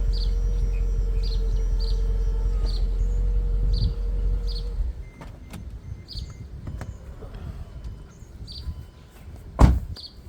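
Mercedes CLK500 convertible top's hydraulic pump motor running with a steady hum, then stopping about four to five seconds in, on a top that does not close properly because of a broken microswitch. A single loud thump comes near the end, and birds chirp briefly in the background.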